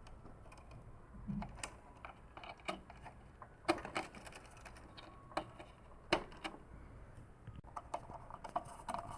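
Irregular small clicks and taps of plastic parts being handled while a ribbon cable is connected inside a Canon MF4450 printer, with a few sharper snaps among them.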